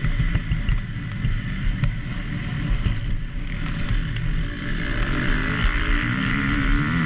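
Motocross bike engine running hard and revving up and down over rough ground, with heavy rumble and wind buffeting. The engine note climbs and wavers in the last couple of seconds.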